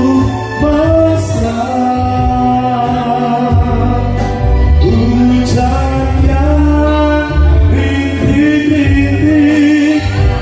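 Live band playing through a PA, with a male singer singing into a microphone over keyboard, guitar and heavy bass.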